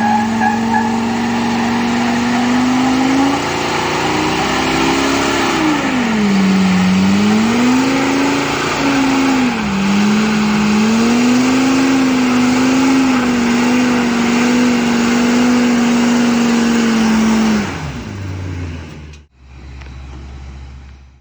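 Ford 6.8-litre V10 truck engine held at high revs with the tires spinning and squealing in a burnout. The revs climb, dip twice and recover, then the engine drops off and stops near the end.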